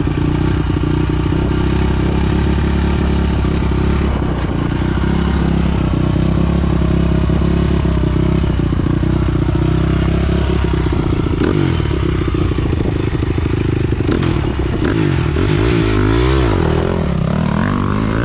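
Honda dirt bike engine idling steadily, then revving and pulling away about eleven seconds in, its pitch rising and falling repeatedly as it rides off.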